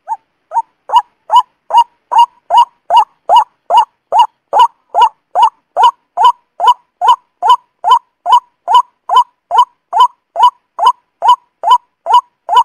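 Recorded lure call of the truok sawah, a paddy-field bird: short, loud calls repeated evenly at about two and a half a second, with a brief break right at the start.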